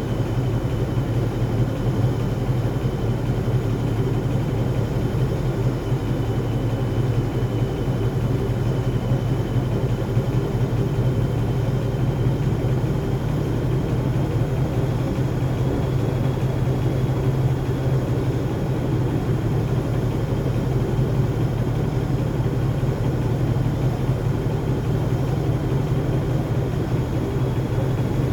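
Gorenje WaveActive washing machine on an interim spin: the drum and motor run steadily with a low hum and a faint high whine that rises slightly over time.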